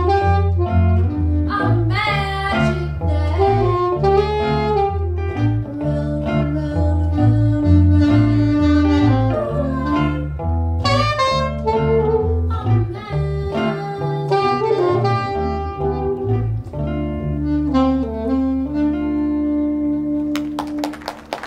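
Live jazz combo: a saxophone plays the lead line over a stepping electric bass line and electric guitar chords. Near the end the band holds a last chord and stops.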